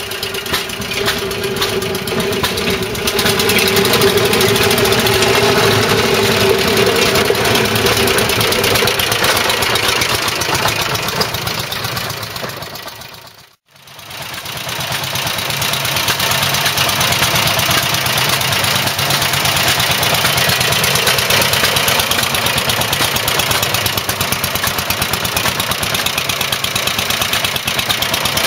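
Dennis motor mower's large single-cylinder side-valve air-cooled petrol engine running, getting louder over the first few seconds as the mower comes closer. The sound fades out briefly about halfway, then the engine is heard running steadily up close.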